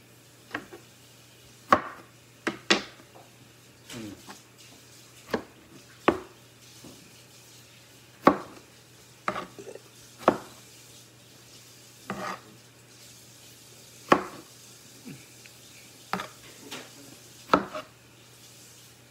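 Knife chopping on a cutting board: sharp knocks at an irregular pace, roughly one a second, some in quick pairs.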